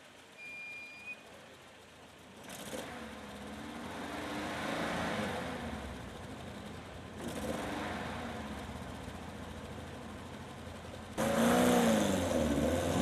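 Hill-climb race car engine revving up and down through gear changes as it climbs, distant at first and growing louder. Near the end the engine sound jumps abruptly to a much louder, closer level.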